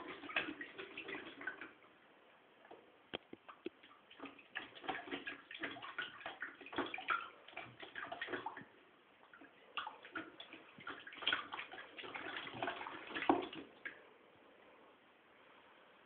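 A cat splashing and pawing at water in a red plastic tub, making bursts of small irregular splashes and drips. The splashing stops about two seconds before the end.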